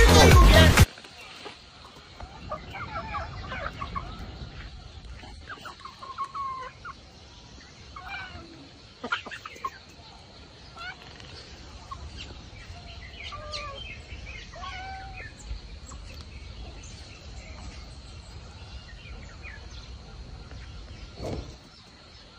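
Chickens clucking, with short scattered calls over a low steady background. A loud burst of music cuts off about a second in.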